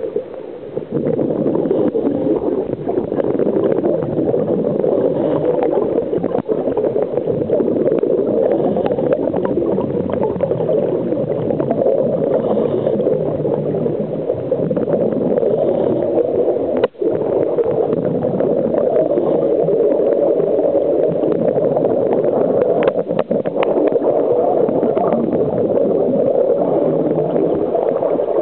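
Steady muffled gurgling rush of water and air bubbles, heard by a camera underwater on a scuba dive. There is a few sharp clicks later on.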